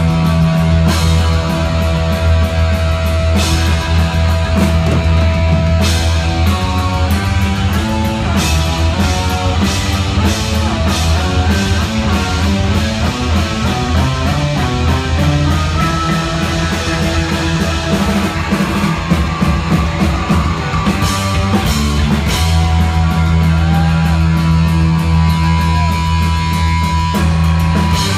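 Heavy metal band playing live and loud: lead electric guitar over a held low bass note and drums. Fast runs of guitar notes fill the middle, and a long held high note comes near the end.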